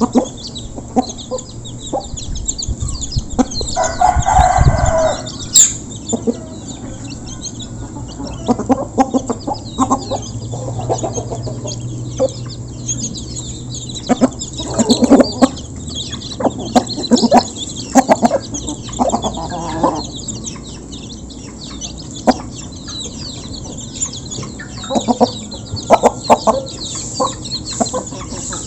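A flock of village chickens clucking steadily while they feed, with scattered sharp pecking clicks and one longer, louder call about four seconds in.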